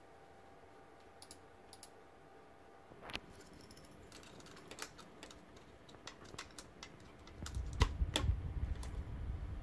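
A few faint clicks, then a run of short sharp clicks and taps as a USB flash drive is handled and plugged into a TV controller board's USB port. From about seven and a half seconds in, a low rumble of handling noise joins the clicks.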